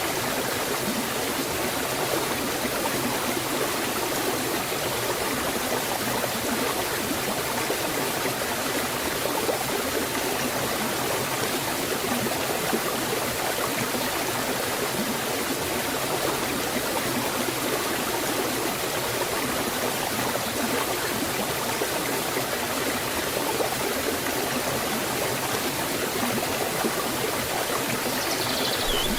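Waterfall water flowing in an even, steady rush. A short, high, falling chirp comes in near the end.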